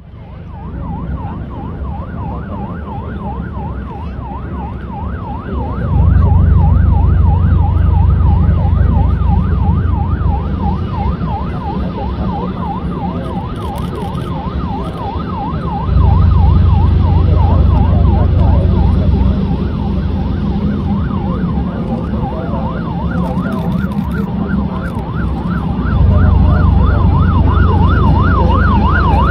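Police Coast Guard patrol boat's siren sounding a fast up-and-down yelp throughout, over a heavy low rumble that grows abruptly louder three times.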